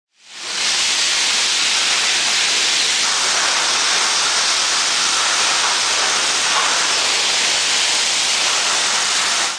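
Steady hissing machinery noise of an aluminum recovery line's conveyors and separators running, with no distinct tone or rhythm. It fades in quickly at the start and cuts off at the end.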